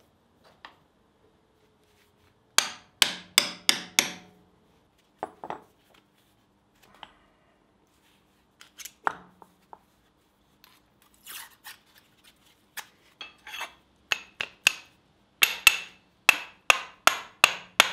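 Hand hammer striking steel, driving the wedge that locks a power hammer die into its seat. Sharp ringing metal-on-metal blows: a quick group of five, a few scattered strikes, then a fast run of about eight near the end.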